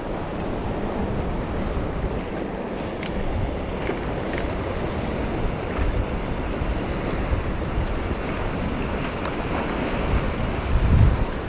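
Steady wash of harbour water with wind buffeting the microphone, gusting harder near the end. A few faint clicks.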